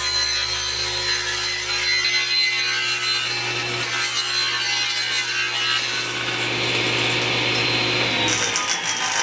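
Cabinet table saw cutting into a wooden drum shell as the shell is turned by hand on steel rollers over the blade, slicing a thin ring off it. Near the end the saw's whine starts to fall in pitch as the blade winds down.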